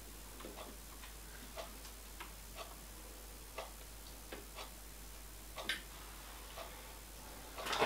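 Faint, irregular light clicks and ticks from a digital caliper: its slide moving and its jaws tapping against the split big-end bearing blocks as the bore is measured, with a louder knock near the end.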